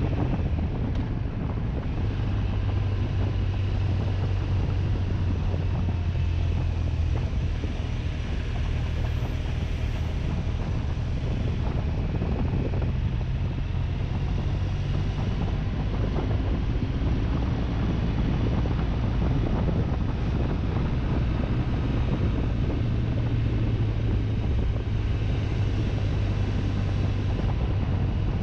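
BMW touring motorcycle's engine running steadily at a cruise, with wind rushing over the microphone.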